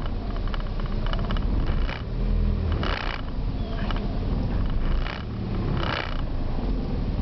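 1994 Mazda Protege's 1.8 L BP four-cylinder engine running after a hard start. A brief rush of sound comes back about every three seconds, in keeping with the surging idle the owner is trying to diagnose.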